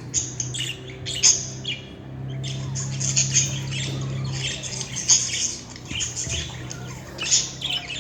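Budgerigar chirping and squawking in a rapid, continuous run of short, scratchy calls, over a steady low hum.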